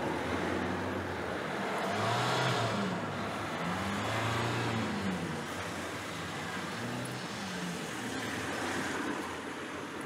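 Road traffic: motor vehicle engines running and passing, their pitch rising and falling several times over a steady background of road noise.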